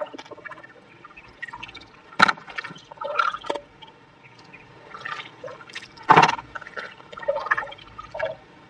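Hands scooping in a water-filled hole in wet sand: irregular splashes and squelches, the loudest about two seconds in and again about six seconds in.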